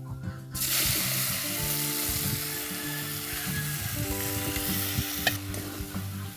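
Chopped leafy greens dropped into hot oil in an iron wok start sizzling suddenly about half a second in and are stirred with a metal spatula. The sizzle eases off near the end, just after a single sharp clink, with soft background music underneath.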